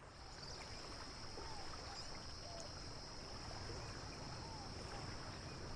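Faint ambience of calm sea water lapping, fading in, with a steady high-pitched hiss and a few faint short whistling chirps over it.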